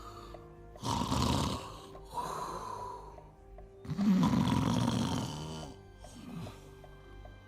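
A man snoring loudly, three snores with the longest and loudest about four seconds in, over background music with a steadily repeating note.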